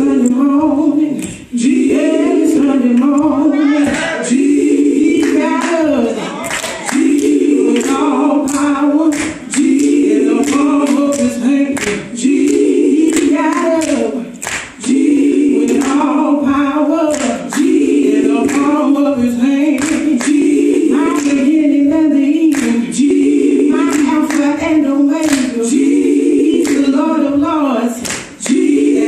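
A small group of women singing a gospel song a cappella in close harmony, in short phrases that repeat about every two seconds, with sharp claps in time.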